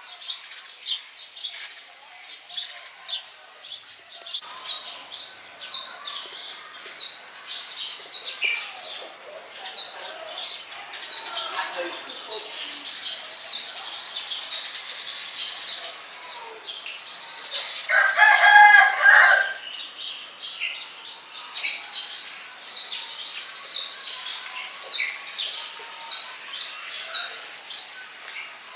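Outdoor birdsong: a small bird chirping over and over, about two short high calls a second. About eighteen seconds in, a rooster crows once, the loudest sound.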